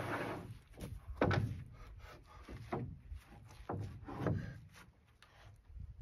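Sawn Douglas fir boards being handled: a board scrapes as it slides off the stack, then several wooden knocks as boards are set down and strike one another, the loudest about a second in.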